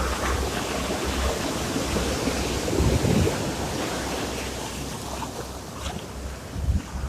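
Sea surf: waves washing in steadily, with wind buffeting the microphone in low gusts.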